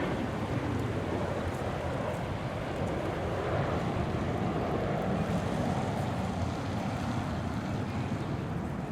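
Steady low rumble of a distant CV-22 Osprey tiltrotor in flight, its proprotors and engines heard as a noisy drone.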